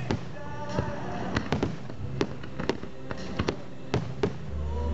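Aerial fireworks shells bursting in a rapid string of sharp bangs, about three a second, with music playing underneath.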